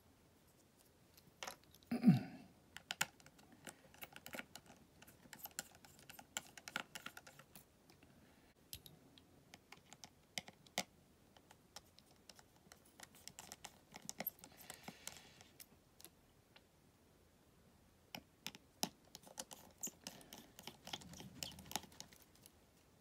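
Scattered small clicks and ticks of a precision Phillips screwdriver working the tiny screws of the metal shield plate over the battery connector inside an iPhone 8 Plus. A louder short sound comes about two seconds in.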